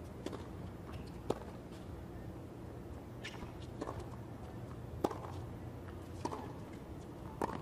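Tennis serve and baseline rally on a hard court: the ball struck by the rackets and bouncing, heard as a string of short sharp pops about a second apart.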